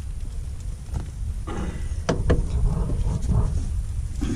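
A few sharp knocks on the metal boat's hull and deck as a small hooked snake is drawn aboard and handled, over a steady low rumble of wind on the microphone.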